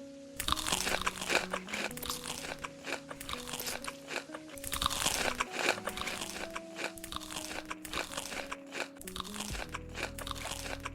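Close-up crunching and chewing of crisp food, a rapid irregular crackle of bites that starts about half a second in. Soft background music plays underneath.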